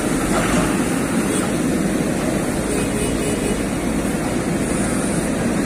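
Heavy diesel engines of a bogged-down Tata dump truck and a JCB backhoe loader running steadily with a deep, even drone.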